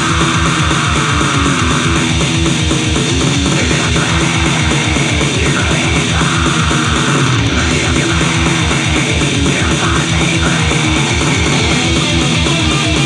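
Goregrind band playing: distorted electric guitars, bass and drums with an even, driving beat.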